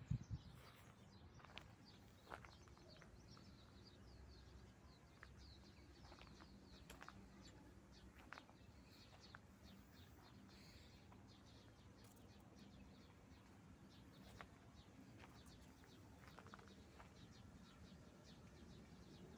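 Faint chirping of small birds: short, scattered high calls over a quiet background hiss.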